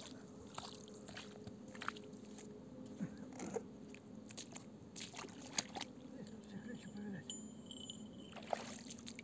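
Footsteps and the handling of fishing gear on a sandy riverbank: scattered soft crunches and clicks over a faint steady hum.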